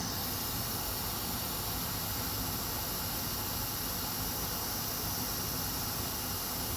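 Hot air rework station blowing steadily at 500 °C onto a burnt MOSFET to desolder it: a constant, even airy hiss.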